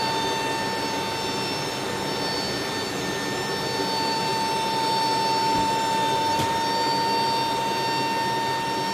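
Steady roar of an MC-130J Commando II's aircraft noise heard inside the cargo hold, with a high, steady whine riding over it. There is a faint click about six and a half seconds in.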